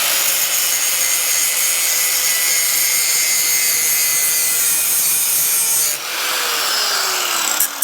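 Power grinder grinding the steel edge of a mower blade: a steady motor whine under a loud, hissing grind. About six seconds in, the grinding stops and the whine falls steadily in pitch as the grinder winds down.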